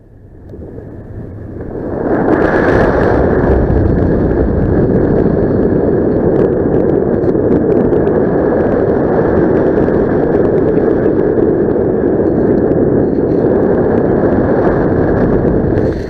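Wind rushing over the camera microphone, probably airflow during a paragliding flight: a steady, loud rush that builds over the first two seconds and then holds.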